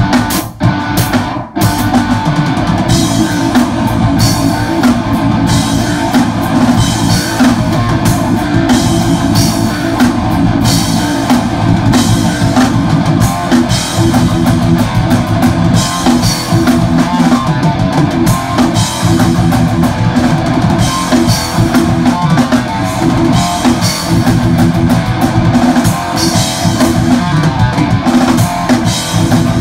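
Three-piece metal band playing live: distorted electric guitar, bass guitar and a drum kit with heavy cymbals. The band stops sharply twice in the first two seconds, then plays on without a break.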